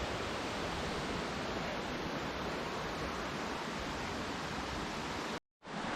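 Steady rushing noise with no distinct events, dropping out to silence for a moment near the end.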